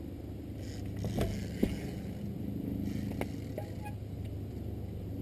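Trials motorcycle engine running at a steady low speed, with several sharp knocks and scrapes as the bike works over the obstacles of the section; the sharpest knock comes about a second and a half in.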